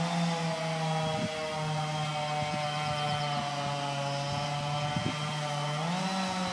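Chainsaw running at high revs with a steady pitch, which rises a little near the end.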